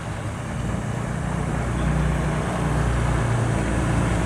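An engine running at low speed with a steady low hum, getting a little louder about two seconds in.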